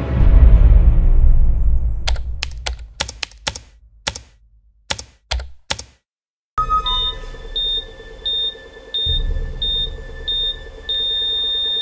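A deep boom hit that fades out, then a run of sharp typewriter-like clicks. After a brief silence a hospital patient monitor beeps about every 0.7 seconds, and near the end the beeps merge into one continuous flatline tone, the sign of the heart stopping.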